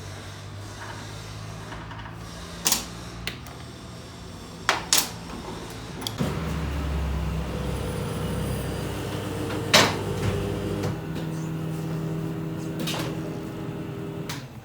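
Sharp metal knocks and clanks of tools at work on a motorcycle over a steady mechanical hum, which grows louder about six seconds in. The loudest knock comes about ten seconds in.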